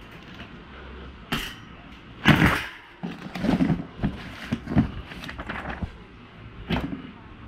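Cardboard shipping box and its paper manual being handled, rustling, with several sharp knocks and clicks; the loudest knock comes about two seconds in.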